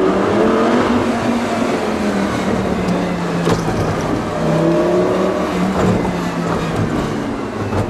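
Lamborghini Gallardo's V10 engine heard from inside the cabin, revving up under acceleration near the start, then running steadily at moderate revs, with another short rise in revs about five seconds in.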